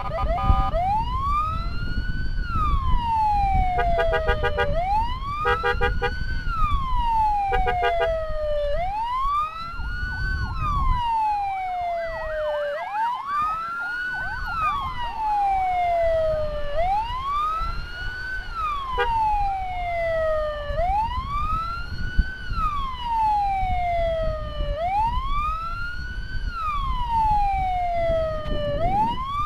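Electronic wail siren on an ambulance escort, sweeping up quickly and down more slowly about every four seconds. Short stuttering beeps break in a few times in the first eight seconds, and engine and road rumble runs beneath.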